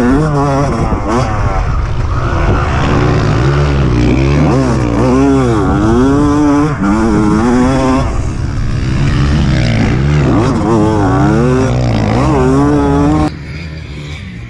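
Dirt bike engine heard from the rider's helmet camera, revving up and falling back again and again as the throttle is worked and the gears change. About 13 seconds in it cuts to a quieter, more distant engine sound.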